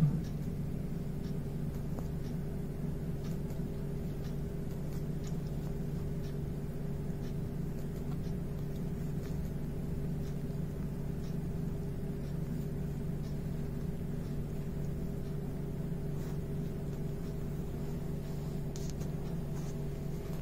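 A steady low hum in a room, with a single thump right at the start and faint scattered clicks and rustles as a baby monkey moves about on a pillow and towel.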